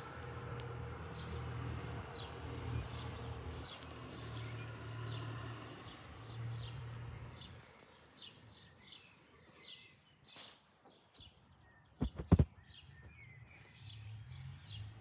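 A small songbird chirping repeatedly, about two short calls a second, over a low rumble that fades out about halfway through. A few sharp knocks about twelve seconds in are the loudest sounds.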